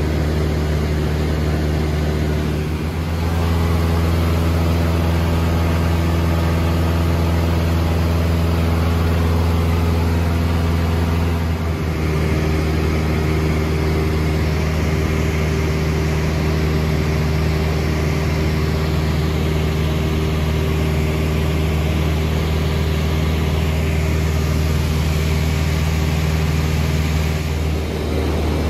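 Cessna 162 Skycatcher's Continental O-200 four-cylinder engine and propeller droning steadily in cruise flight, heard inside the cabin. Its tone shifts slightly about three seconds in and again around twelve seconds.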